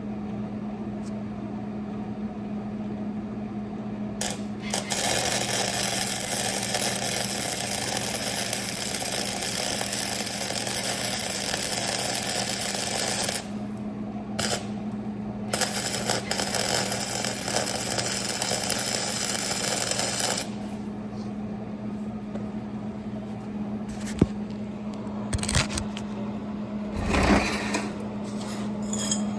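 Arc welding: two long runs of crackling, sizzling arc, about eight seconds and then about five, each starting and stopping sharply, laying weld beads on a leaf spring slider. A steady hum runs underneath, and a few sharp clicks and knocks come near the end.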